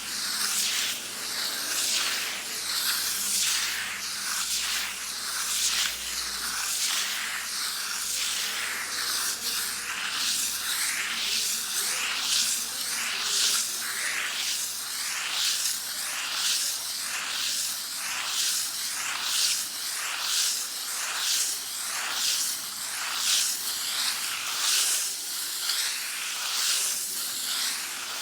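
Sandpaper rubbed back and forth on a wall: a rough, hissing rasp in repeated even strokes.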